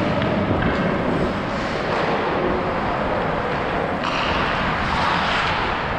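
Ice hockey skates gliding and scraping on rink ice, heard from a camera worn by a skater, as a steady rush of noise that grows brighter and hissier about four seconds in.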